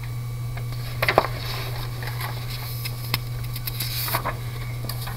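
Sheets of paper being handled and slid across a desk: a few soft knocks and short rustles, the busiest about a second in and again around four seconds, over a steady low hum.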